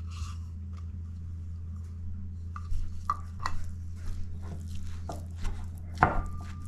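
Wooden spoon scraping deviled ham from its can and stirring a moist stuffing mixture in a mixing bowl: soft squishy scrapes and a few knocks, the loudest about six seconds in, over a steady low hum.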